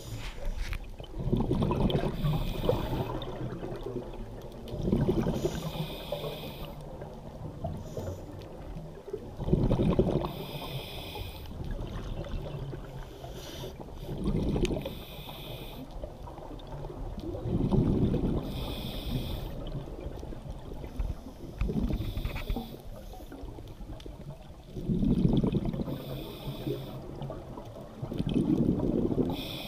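Scuba diver breathing through a regulator underwater: a rumbling burst of exhaled bubbles and then a short hiss of inhalation, repeating about every three to four seconds.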